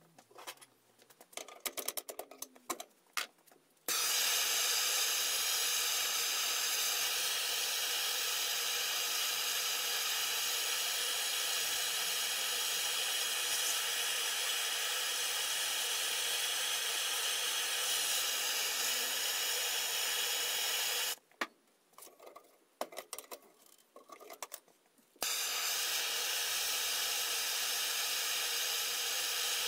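MAPP gas hand torch burning with a steady hiss as it heats steel flat bar for bending. The hiss starts suddenly about four seconds in, after a run of light clicks and taps. About three-quarters of the way through it cuts off for some four seconds of scattered clicks and knocks, then starts again.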